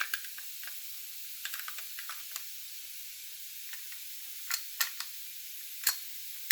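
Small clicks and taps of Beretta A300 Outlander shotgun parts being handled as the trigger housing is slid into place. The sharpest clicks come about four and a half and six seconds in, over a steady recording hiss.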